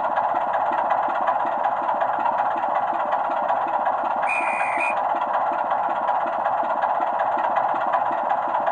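Model diesel locomotive's DCC sound decoder playing a Class 24 diesel engine at idle: a steady low beat about five times a second over a constant hiss. A short high tone sounds once, about four seconds in.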